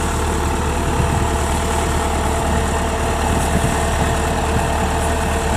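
Kubota DC-105X combine harvester's diesel engine running steadily while the machine stands still, a continuous hum with a strong low rumble.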